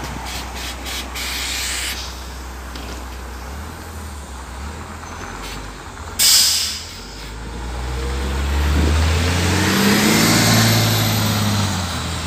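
LiAZ 5292.67 city bus: a short, loud hiss of compressed air from its pneumatics about six seconds in, then its engine revving up as the bus pulls away from the stop.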